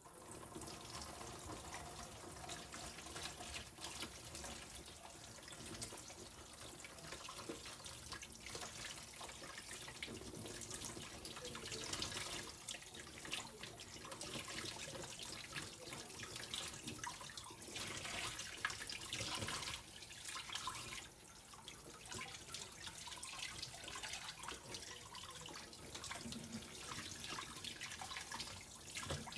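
Kitchen tap running into a stainless steel sink, the stream splashing over a whole raw chicken as it is rinsed and turned by hand, the splashing rising and falling unevenly.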